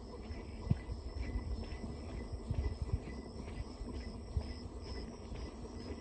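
Insects chirping in an even pulse of about two or three chirps a second over a faint steady high whine, with irregular low thuds of footsteps on a muddy dirt road.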